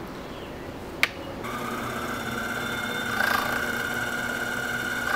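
Small benchtop lathe: a sharp click about a second in, then its motor starts and runs with a steady whine. A short scraping burst near three seconds in, as the radius cutter begins taking the corner off the spinning wooden workpiece.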